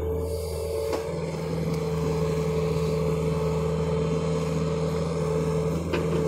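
John Deere excavator's diesel engine running at a steady speed, with a steady whine above the engine note.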